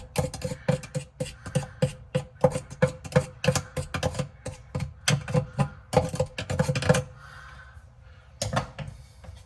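Rapid, irregular clicking and scraping strokes, about four or five a second, as the inside of a dishwasher tub is cleaned out; they stop about seven seconds in, leaving a faint hiss and a few last clicks.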